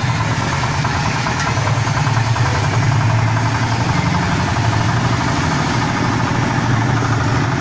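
A motor running steadily with an even low hum.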